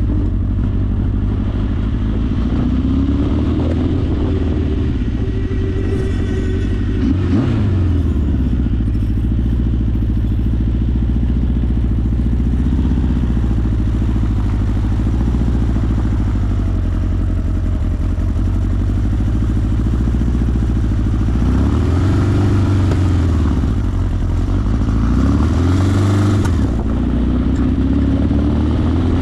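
1981 Honda CB900's inline-four engine running while being ridden, its pitch climbing and dropping several times as the throttle is opened and closed.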